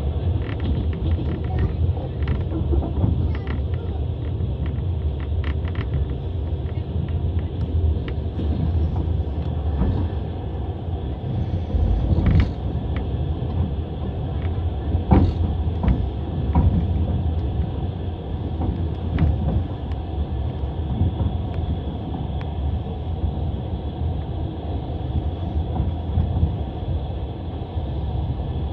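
Passenger train carriage running along the rails, heard from inside: a steady low rumble with the irregular clack of wheels over rail joints and occasional louder knocks, one sharper than the rest about halfway through.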